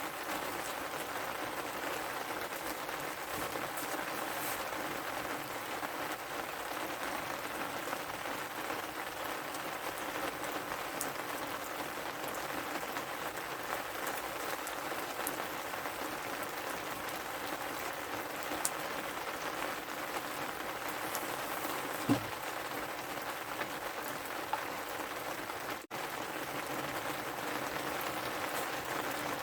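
Steady rain falling, a continuous even hiss, with one short knock about three-quarters of the way through.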